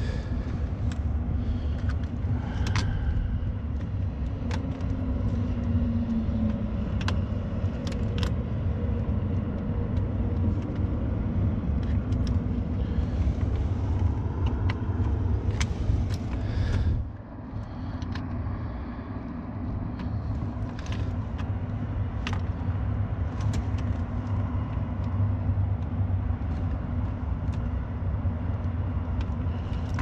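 Scattered small clicks and rustles of gloved hands working plastic wire-harness plugs onto an HVAC control board, over a steady low rumble that dips briefly about two-thirds of the way through.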